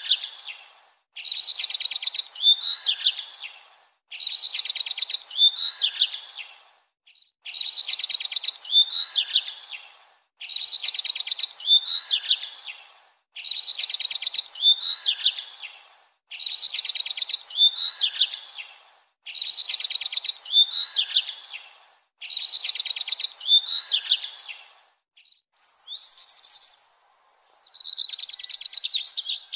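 A songbird singing the same short phrase over and over, about once every three seconds: each phrase opens with a rapid high trill and ends in a few quick sweeping notes. Near the end a different, higher-pitched call breaks the pattern once before the phrase returns.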